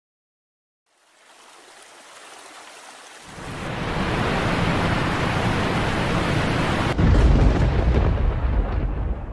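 Sound-effect sting for an animated logo: a hiss that swells into a low rumble, with a sudden deep boom about seven seconds in, then fading.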